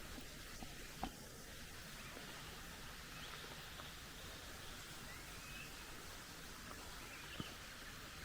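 Faint outdoor ambience: a steady high hiss with a few faint, distant bird chirps, and two light knocks, one about a second in and one near the end.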